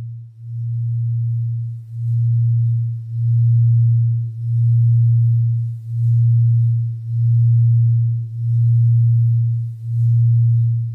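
Low electronic tone, a pure hum-like note, pulsing in slow, even swells about every second and a quarter, as in a meditation drone.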